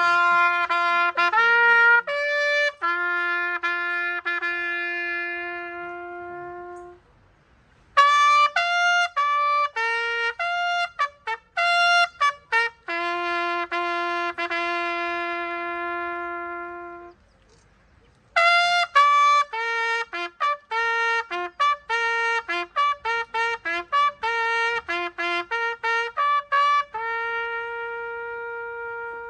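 A solo brass instrument playing a slow tune one note at a time, in three phrases that each end on a long held note. The last phrase has quicker runs of short notes before its held note.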